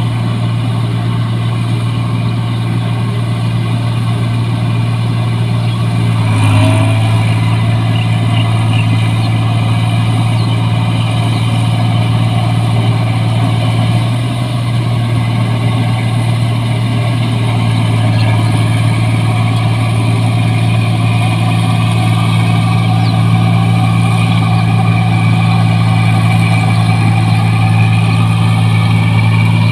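New Holland 1545 tracked rice combine harvester running steadily as it harvests, a continuous engine drone with a strong low hum. It swells briefly about six seconds in and dips for a moment around the middle.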